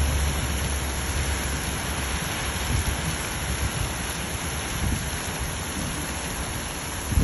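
Steady rain falling, an even hiss, with a low rumble underneath that eases off about two seconds in.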